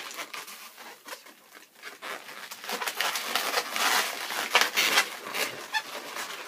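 Latex balloons rubbing and squeaking against hands as they are handled and tied, a scratchy rustling that grows louder about two seconds in.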